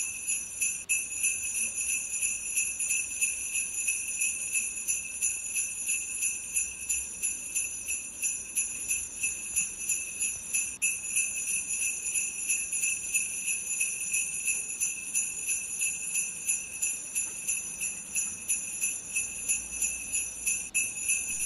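Sleigh bells jingling in a steady rhythm, about three shakes a second, over a bright ringing tone that stays the same throughout.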